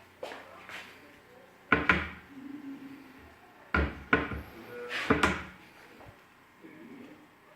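Kitchen cabinet doors being opened and shut: sharp knocks in close pairs, about two, four and five seconds in.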